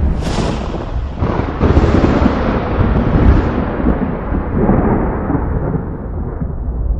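Thunder: a sharp crack at the start, a second burst about a second later, then a long, deep rolling rumble that slowly fades.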